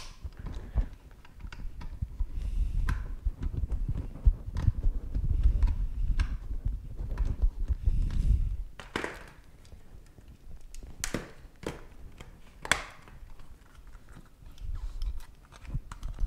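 A precision screwdriver working screws out of the plastic shell of a wireless mouse. For the first eight seconds or so there is a dull low rubbing and knocking from the mouse being held and turned against the table. After that comes a handful of separate sharp plastic clicks and taps.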